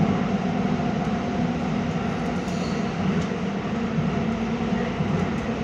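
Copenhagen M3 City Circle Line driverless metro train running in its tunnel, heard from inside the carriage: a steady rumble of wheels and running gear with a constant low hum.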